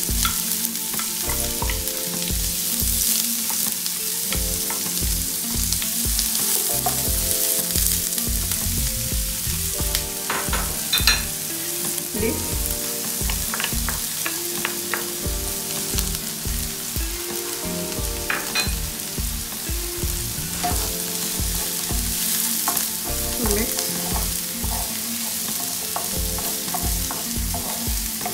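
Chopped red onion sizzling in hot olive oil in a nonstick frying pan, with a wooden spatula scraping it out of a bowl and stirring it around the pan.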